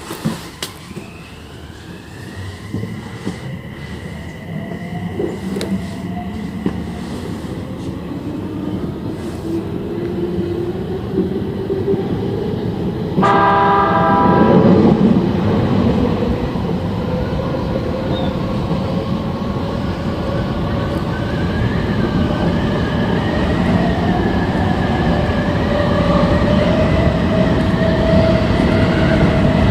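Odakyu 3000-series electric train accelerating: its VVVF inverter whine rises in pitch over the first few seconds and levels off, while the running noise builds. About thirteen seconds in, a short horn blast sounds, followed by wheel and track noise with a motor tone that climbs slowly as speed increases.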